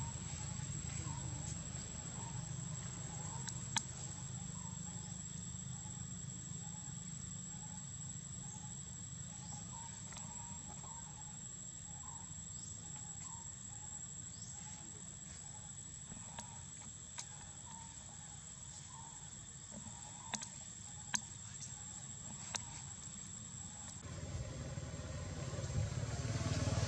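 Insects droning on one steady high-pitched note, with a soft call repeating about twice a second and a low steady rumble beneath. There are a few sharp clicks, and louder low noise swells in the last few seconds.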